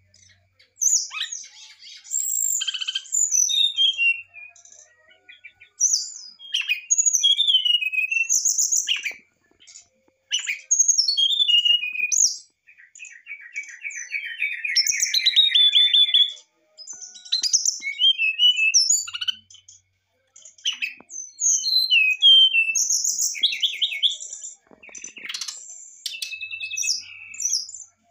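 Brown-chested jungle flycatcher singing a varied song of short whistled phrases with gliding and falling notes, separated by brief pauses. Partway through comes a fast buzzy trill lasting about three seconds.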